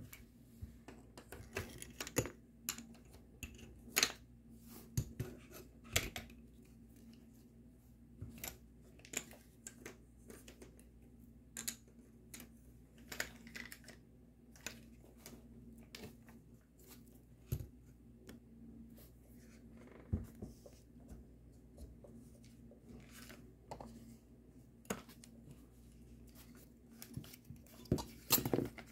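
Irregular clicks, taps and light metal clinks of airsoft rifle parts and small tools being handled and set down during a handguard swap, with a steady low hum underneath.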